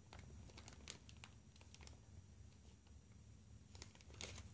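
Near silence, with a few faint, brief crinkles from a clear plastic parts bag being handled, a little more of them near the end.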